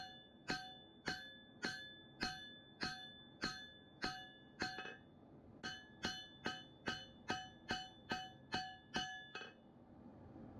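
Hand hammer forging a Damascus knife blade on an anvil: evenly paced blows, about two a second, each with a clear metallic ring. There is a short pause about halfway through, then the blows resume.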